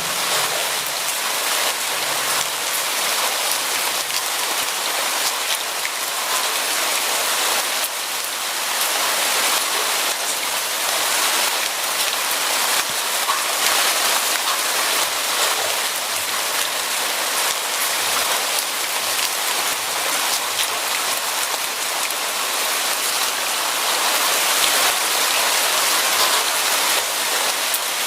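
Steady rain falling and pattering on a surface, a dense even hiss with many individual drop ticks.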